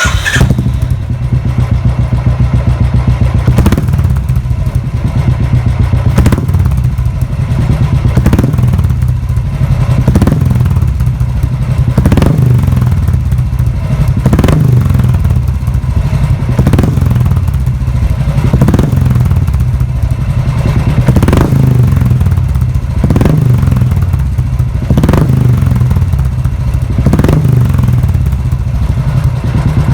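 Royal Enfield Bullet's single-cylinder engine running at idle through its silencer, a loud, steady, low thump. A sharper burst comes roughly every two seconds.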